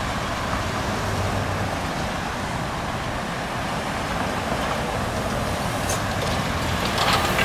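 Steady road traffic noise from vehicles on a bridge, with a low rumble throughout. A few short clicks come near the end.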